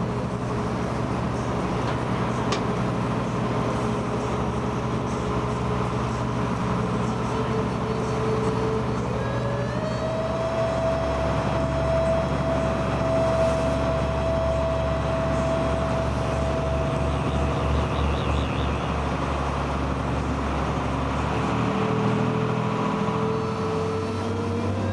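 Boat's engine running steadily under way. A whine in it rises in pitch about nine seconds in, holds, and rises again near the end.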